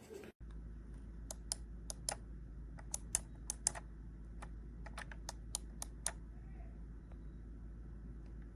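Keys of a Razer Tartarus gaming keypad being pressed in quick, irregular clicks, about twenty of them over five seconds, then stopping. A steady low hum runs underneath.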